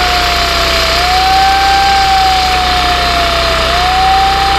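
Heavy machinery running steadily, with a whining tone that rises quickly and then sinks slowly, repeating about every three seconds.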